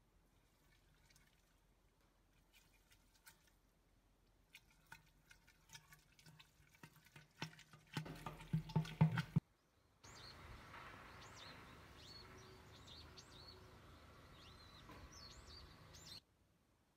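Faint scattered clicks and crunching as a wooden spoon and fingers work crumbly grain mash in a glass jar, growing denser and louder for about a second and a half around eight seconds in. From about ten seconds, faint outdoor air with birds chirping.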